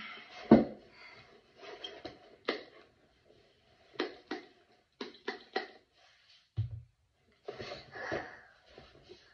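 Short hissing squirts from a trigger spray bottle misting a toddler's hair, several in quick succession near the middle, with soft brushing and rustling of hair in between. A loud thump about half a second in.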